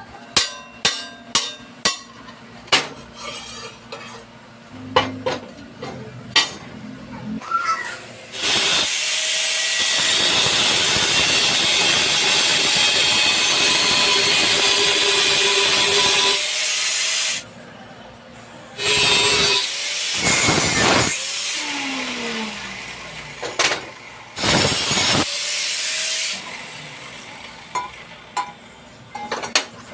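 A power tool runs three times on the chuck's metal work: a long stretch of about nine seconds, then two shorter ones. Before it comes a run of sharp clicks and knocks.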